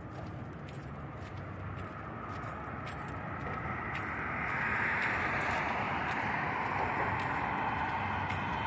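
Steady rush of passing traffic that swells louder about four seconds in, with light footsteps ticking over it.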